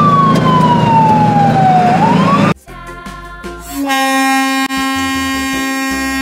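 Cartoon ambulance siren sound effect: a wail falling slowly in pitch and then swinging back up, over a low engine rumble; it cuts off suddenly about two and a half seconds in. About a second later a long steady horn-like note comes in and is held for about two and a half seconds as the cartoon fire engine drives in.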